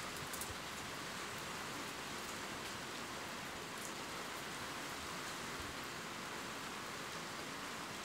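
Steady rain falling in a forest: an even hiss with a few faint high ticks of single drops.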